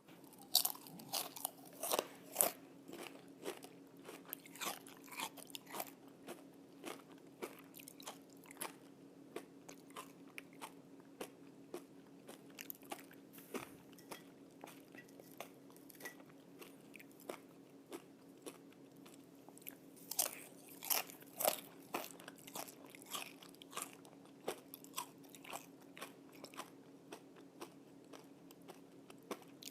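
Crispy pan-fried bacon crunching in irregular crackling bursts, with clusters of louder crunches near the start and again about twenty seconds in.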